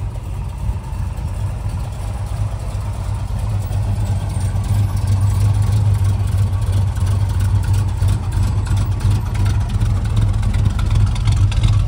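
Engine of a 1969 Dodge Charger 'General Lee' running as the car creeps along at low speed: a steady low exhaust rumble that grows louder about four seconds in as the car draws near.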